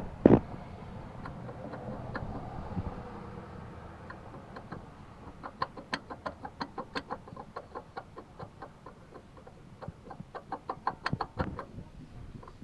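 Chevy Impala engine running with a low hum and two runs of rapid ticking, about five or six ticks a second, from the failing water pump.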